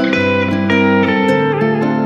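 Background music with sustained pitched notes changing every half second or so.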